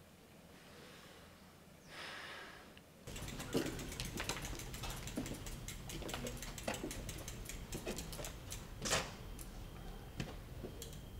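A soft breath, then from about three seconds in, rapid irregular ticking of bicycle freewheels as two bicycles are pushed along, with footsteps and a few louder clicks.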